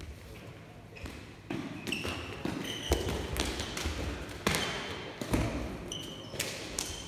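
A lábtoll-labda (footbag net) rally echoing in a gym: several sharp knocks of the shuttlecock being kicked and of feet landing on the floor, mixed with brief high sneaker squeaks on the court.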